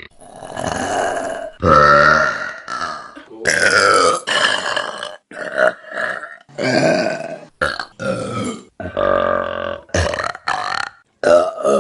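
A rapid run of loud human burps, about a dozen in a row, some drawn out for a second or more and others short and clipped.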